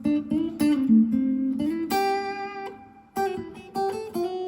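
Clean Strat-type electric guitar (Gear4Music LA Select) played through a Zoom G1Four hall reverb into a FoxGear Tweed 55 amp and Vox BC108 speaker: picked notes and chord fragments, each ringing out into a reverb tail. The playing pauses briefly about three seconds in, then a few more notes follow.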